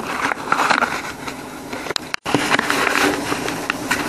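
Thin box cardboard being folded and creased by hand close to the microphone: rubbing and crackling with many small clicks, broken by a brief dropout a little over two seconds in.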